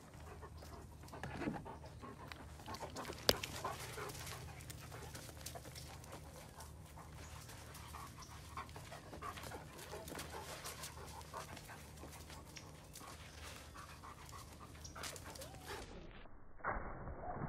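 A dog panting, with scattered light scuffs and ticks of steps on a dirt path and one sharp click about three seconds in. About sixteen seconds in the sound turns suddenly muffled.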